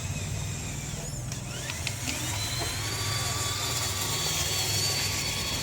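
Small electric motor of a remote-controlled toy tractor running with a steady hum and a high whine. The whine rises in pitch about two seconds in, then holds as the motor spins up.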